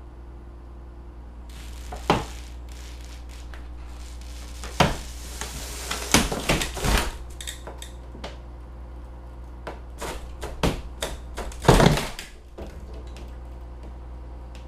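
Window-seat frame cracking, creaking and knocking as it is pulled out of the wall by a bucket truck's hook: a string of sharp cracks and thuds, clustered about two, five, six to seven and ten to twelve seconds in, the loudest near twelve seconds, over a steady low hum.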